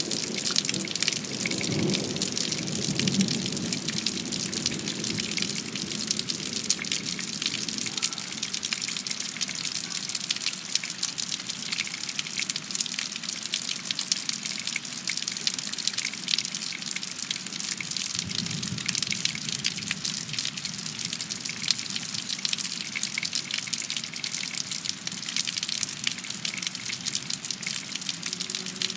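Thunderstorm rain pouring steadily, a dense hiss of drops and splashing. A low rumble comes through in the first few seconds and again briefly about two-thirds of the way in.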